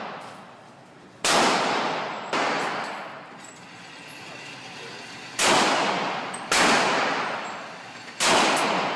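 Glock 35 .40 S&W pistol fired five times at an uneven pace, two quick pairs with a longer pause between them, then a fifth shot near the end. Each shot is a sharp crack followed by about a second of echoing decay.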